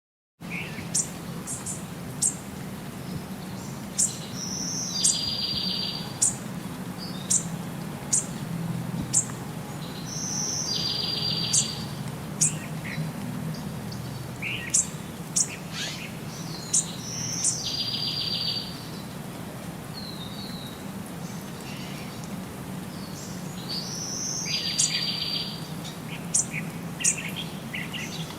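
Bird chirping: sharp high chirps about once a second, with a short buzzy trill repeated four times, about every six to seven seconds, over a steady low hum.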